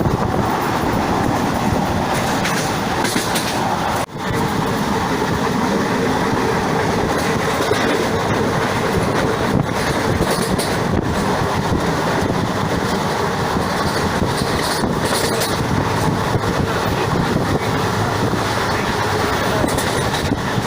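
Passenger train running along the track, heard from on board: a steady loud rumble and rush with wheels clacking over the rail joints. The sound briefly drops out about four seconds in.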